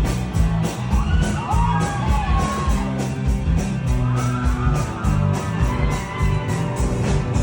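Loud live rock band playing: a thick bass line and a steady drum beat, with a voice sliding up and down in pitch about a second in.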